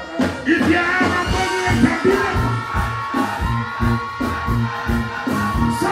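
Dancehall riddim played loud over a stage sound system: a steady thudding bass beat with a held synth melody, kicking in about half a second in.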